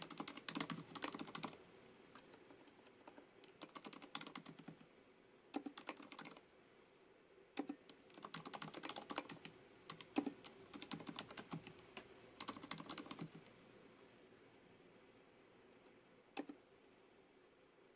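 Typing on a FILCO Majestouch MINILA-R Convertible mechanical keyboard with Cherry MX Silent switches: soft, damped keystrokes in short bursts with pauses between them. The typing stops a little past halfway, with one last single keystroke near the end.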